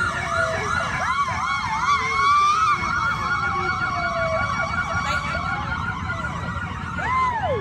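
Several emergency-vehicle sirens sounding at once, overlapping: a fast yelp warbling steadily while slower wails rise and fall, one long wail swelling and falling near the end.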